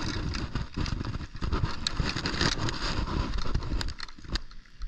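Wind rumbling on the microphone, with scattered clicks and rustles from handling a fish gripper and a digital hanging scale.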